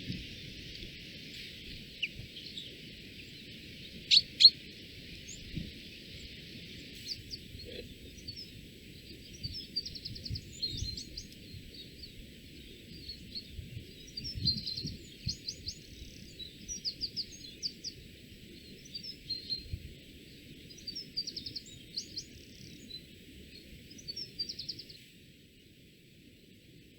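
Small forest songbird calling: many short high chirps and quick trilled runs over a steady background hiss, with two sharp loud clicks about four seconds in.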